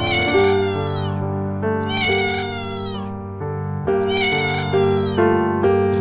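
A domestic cat meowing three times, each call about a second long and falling in pitch, over background music.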